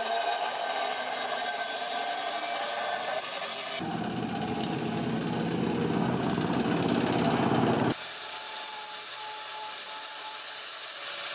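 Handheld electric angle grinder grinding a steel knife blank, a steady whine from the disc on the metal. From about 4 to 8 seconds a coarser, lower rasping takes over, then the grinder whine returns with a hissier edge as the blank is ground with a sanding disc.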